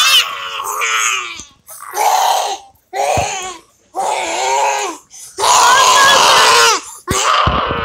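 A child's loud, drawn-out wordless cries in about six bursts with short breaths between, the longest near the end.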